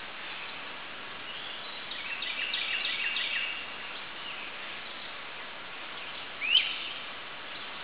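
Small birds calling in the woods over a steady background hiss: a quick run of short high chirps about two seconds in, and one sharp, louder rising chirp near the end.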